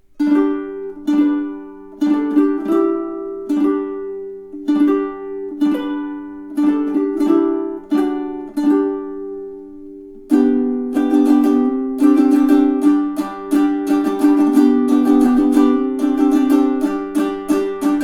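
Magic Fluke M20 tenor ukulele in re-entrant baritone tuning (dGBE with a high D, Living Water strings) played solo. Chords are left to ring about once a second at first; about ten seconds in, the playing turns to a faster, busier rhythm.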